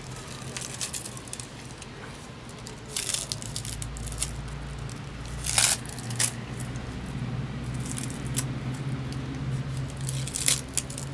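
Dry leaves crinkling and rustling as they are handled, in a few short crackly bursts about three, five and a half and ten seconds in, over a steady low hum.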